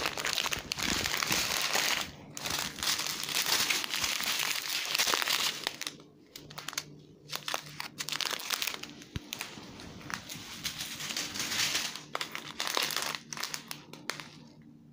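Crinkling of small clear plastic bags of diamond-painting drills being handled and shuffled, loudest in the first two seconds, with short pauses about six and seven seconds in and near the end.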